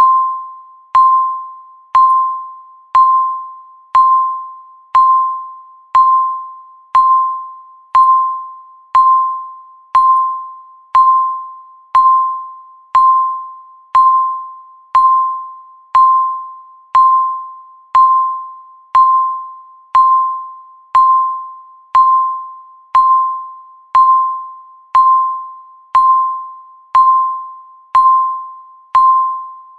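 Countdown timer beeping once every second: a single clear electronic tone that starts sharply and fades away before the next beep.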